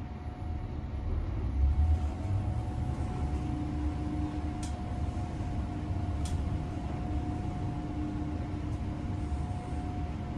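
Glass passenger lift (thyssenkrupp) travelling down: a steady low rumble with a faint steady hum from the drive, and two faint clicks around the middle.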